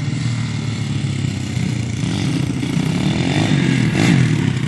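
Dirt bike engine running steadily under throttle.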